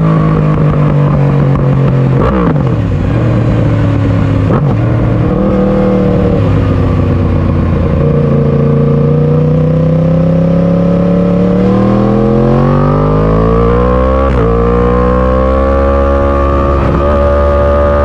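2018 Yamaha R1's crossplane inline-four running through an Akrapovic Evolution exhaust while riding. The engine note falls and shifts in steps over the first several seconds, holds fairly steady, then climbs steadily in pitch from about twelve seconds in as the bike accelerates.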